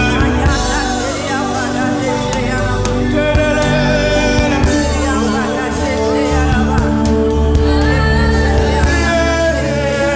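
Live gospel worship music: a band playing with singing, held sustained notes over a steady bass and drums.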